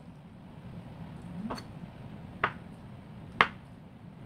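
Chef's knife cutting through a block of tofu and knocking on a wooden cutting board, three sharp knocks about a second apart.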